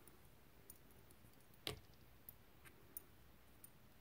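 A few faint, light clicks and taps from tarot cards being handled on a table. The loudest comes a little under two seconds in.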